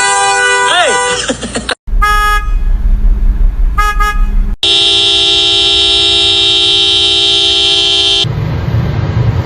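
Car horn being honked by a dog pressing on it: a steady blare that wavers and breaks off after about a second and a half, then two short toots over a low rumble, then another long steady blare of about three and a half seconds, ending in low rumbling noise.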